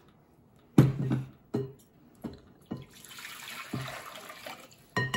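Warm water poured from a glass measuring cup into a large glass mixing bowl, splashing for about a second and a half past the middle. Before it come a few sharp knocks and clinks of the glassware being handled, and there is one more knock near the end.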